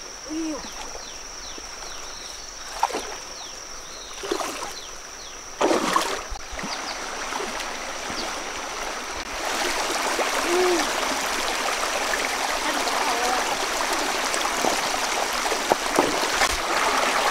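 Splashing of someone wading through shallow river water, several separate splashes in the first few seconds. From about halfway through, the steady rush of a stream running over rocks takes over and grows louder.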